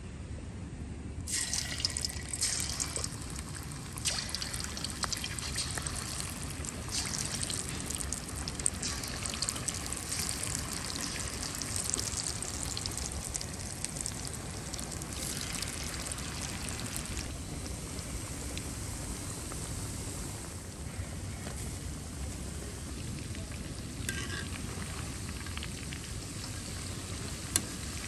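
Marinated chicken pakodi pieces deep-frying in a kadai of hot oil: a steady crackling sizzle that starts abruptly about a second in.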